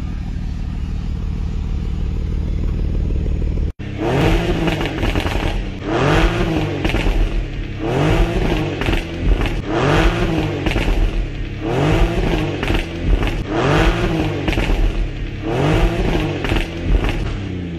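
Porsche Cayenne V6 with a Stage 1 downpipe and valved exhaust, idling steadily at first, then, after a short break, revved in a series of about seven quick blips roughly every two seconds, each rising and falling back.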